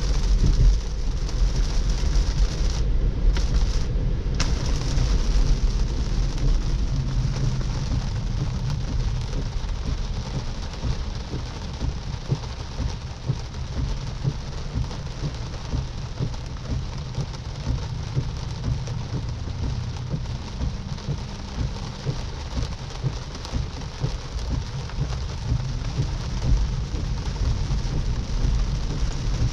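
Moderate rain pattering steadily on a moving Tesla electric car, over a continuous low road and tyre rumble on the wet pavement.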